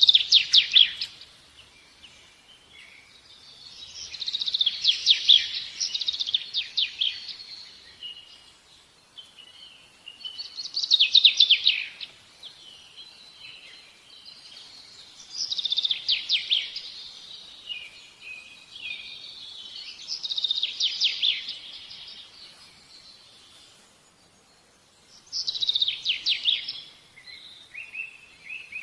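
A songbird singing: short phrases of rapid, bright trilled notes, each lasting a second or two and repeating about every five seconds, with quiet between them.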